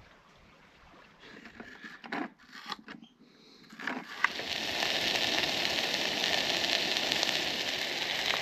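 A few light clatters of cooking gear, then about four seconds in food starts sizzling in a hot pan: onions frying for a tikka masala, a steady crackling sizzle.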